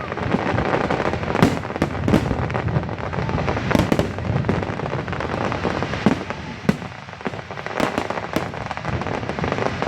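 Aerial fireworks going off in quick succession: a continuous crackling with sharp bangs, the louder ones about one and a half, four and six seconds in.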